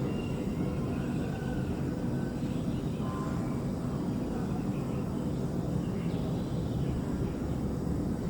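Steady low outdoor rumble with faint, scattered bird chirps over it.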